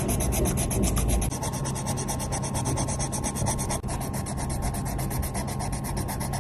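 A drawing tool scratching across paper in fast, even, back-and-forth strokes, a continuous rhythmic rasp.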